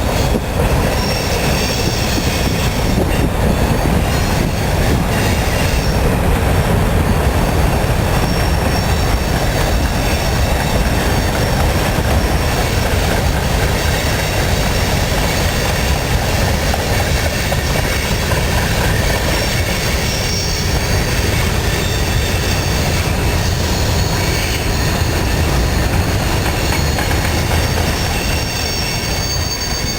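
A CSX freight train's cars rolling past, a steady loud rumble of steel wheels on rail with a thin high-pitched wheel squeal over it.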